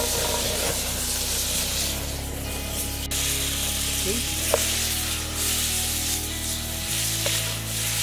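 Fat sizzling and frying in a wok: butter, then marinated chicken pieces, as a steady hiss. Under it, background music of held low notes that change every couple of seconds.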